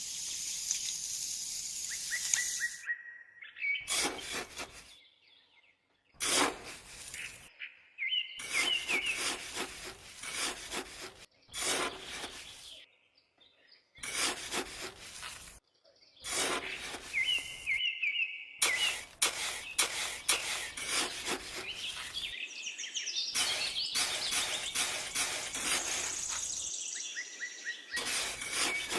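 Birds chirping in short, abruptly cut snippets, over runs of sharp clicks or taps.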